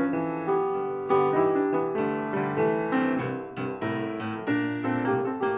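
Piano music: a melody of struck notes that ring and die away over held lower notes.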